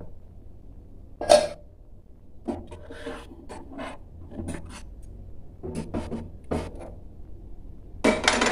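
Steel kitchen plates and a frying pan being slid and set down on a glass-top stove: a string of short scrapes and knocks, the loudest about a second in and a cluster near the end.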